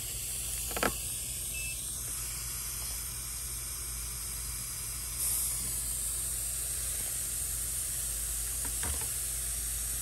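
Air hissing steadily through an inflator chuck clamped on a bicycle tyre's Schrader valve as the tyre's pressure is set, a little louder from about five seconds in, with a short click near the start.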